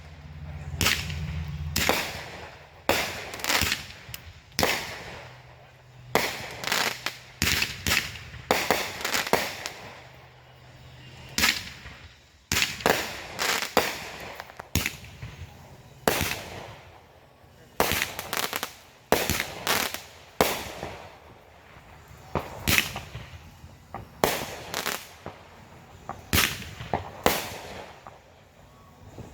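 Consumer fireworks going off one after another: many sharp bangs and crackling reports, irregularly spaced and often in quick clusters of several, each with a short echoing tail.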